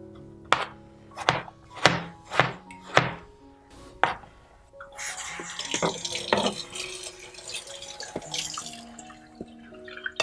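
Knife chopping on a cutting board, about six knocks half a second apart, then a kitchen tap running as a plastic cutting board is rinsed under it for about four seconds.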